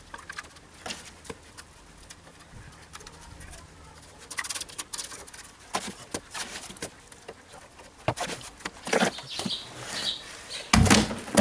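Trowel scraping and knocking against a plastic mortar tub as the last of the mortar is scooped out, in scattered short scrapes and clicks. Near the end the tub is lifted and set down with a heavy thump.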